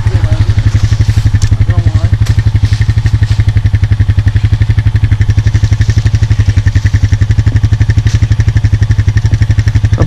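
ATV engine idling close by, a loud, even, rapid putter.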